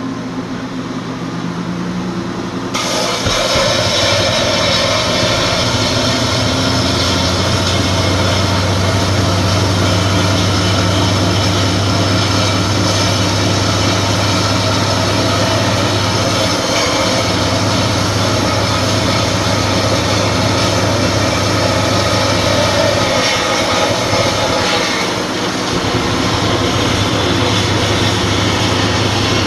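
Homemade belt sander built from an old treadmill motor running at full speed; about three seconds in, a metal disc cut from a water heater's bottom is pressed hard into the sanding belt and a steady grinding of metal on abrasive belt sets in, easing briefly near the end.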